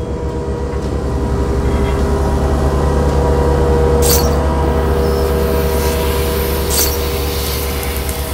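Sound-effect drone of an air-compressor station starting up and pushing air through the system: a low hum with steady tones that swells to a peak about halfway and eases off, marking a surge of airflow. Two short hissing bursts of air cut in, about four and seven seconds in.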